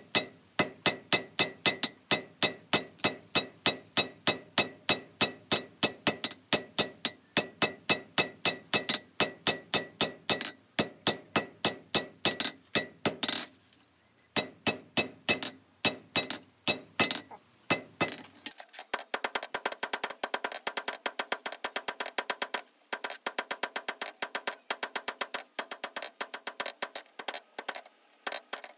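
Hand hammer forging a red-hot 5/8-inch square steel bar on an anvil, drawing it out to a taper: steady ringing blows about three a second, with a short pause about halfway. For the last ten seconds the blows come quicker and lighter, with a higher ring.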